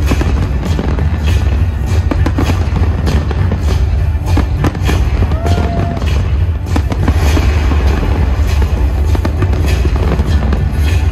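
Fireworks bursting in quick, irregular succession over loud music with a heavy bass.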